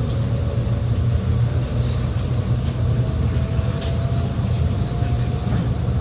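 Cabin running noise of a 300 series Shinkansen: a steady low rumble with a faint tone slowly rising in pitch as the train picks up speed after departure.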